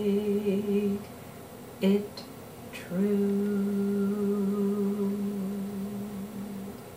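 A woman's voice holding long, low sung or hummed notes to close the song. One note is sustained to about a second in, there is a brief note near two seconds, and a final long note from about three seconds in slowly fades out.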